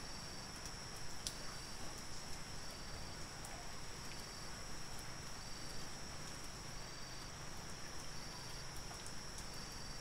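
Night insects: a steady high-pitched trill with a short high chirp repeating about once a second.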